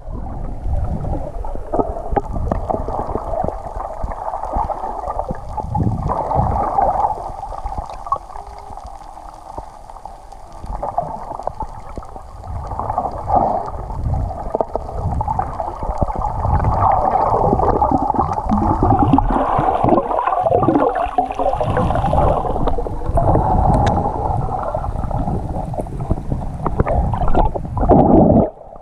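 Underwater sound through a camera housing: continuous muffled water rushing and gurgling that swells and eases, quieter for a few seconds near the middle, with a few faint ticks.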